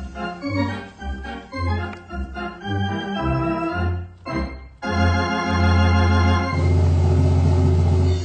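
Compton theatre organ (VTPO) playing silent-film accompaniment: a pulsing pedal bass under short chords, then a long held chord from about five seconds in that swells fuller and cuts off sharply near the end.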